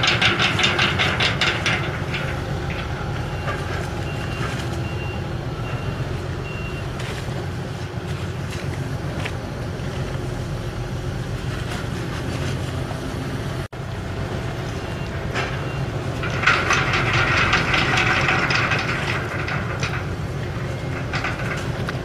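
A small coastal fuel tanker's diesel engine running with a steady low rumble as the ship manoeuvres alongside. Twice it grows louder with a fast, even rattle, near the start and again about two-thirds of the way through.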